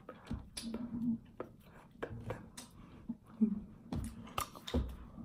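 Hands slapping, tapping and brushing against each other while signing, a scatter of short clicks and knocks, with brief low hums from the signer's mouth between them.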